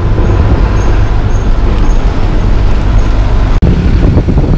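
Engine and road noise inside a moving city bus: a loud, steady rumble. A faint high ticking about twice a second runs through the first half. The sound drops out for an instant about three and a half seconds in, then carries on.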